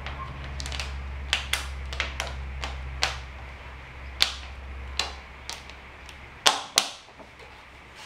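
Rubber balloon and small plastic bottle being handled as the balloon is stretched over the bottle's neck: a run of irregular sharp snaps and clicks, the loudest two close together near the end.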